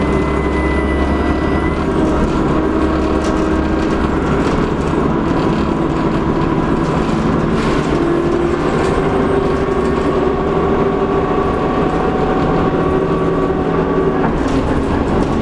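Dennis Trident double-decker bus under way, its diesel engine running steadily. A thin, high turbocharger whistle holds over the engine and stops about two seconds in.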